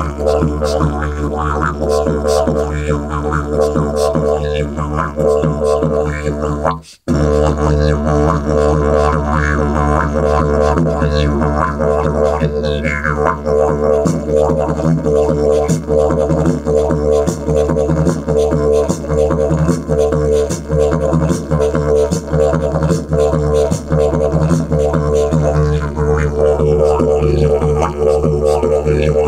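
Didgeridoo played solo: a continuous low drone with rhythmic pulses running through it. The sound drops out for a moment about seven seconds in, then the drone resumes.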